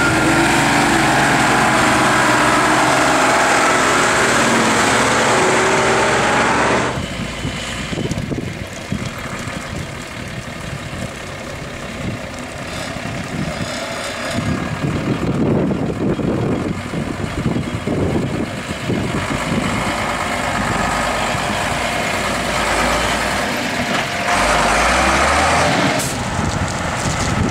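Heavy diesel truck engines working off-road: a Mercedes-Benz army truck's diesel runs loud and steady as it climbs, then about seven seconds in the sound cuts to quieter, uneven engine noise from a Unimog crossing gravel heaps, rising again near the end as a truck passes close.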